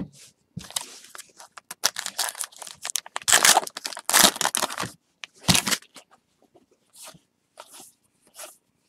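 A foil baseball-card pack wrapper being torn open and crinkled in the hands, loudest about three to four and a half seconds in, then a few soft taps and rustles as the cards are handled.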